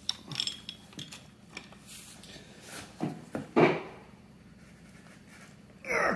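Steel hand wrenches clinking and knocking against the nut, shaft and each other as a pipe wrench and a combination spanner are fitted onto the distributor drive gear nut of an engine block. A handful of light metal knocks, the loudest about three and a half seconds in.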